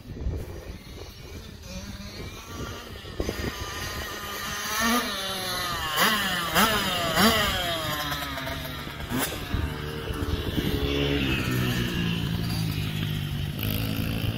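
Small youth dirt bike engines, a Kawasaki KX65 two-stroke and a Honda XR80R four-stroke, accelerating across a field. Around the middle the pitch climbs and drops sharply about five times in quick succession as a bike shifts up through the gears, then settles into a steadier run.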